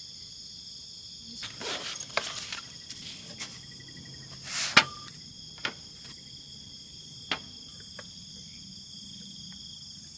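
A steady, high-pitched chorus of night insects, with a scattering of short clinks and knocks from cooking gear being handled on a metal camp table. The loudest is a sharp clink with a brief ring about halfway through.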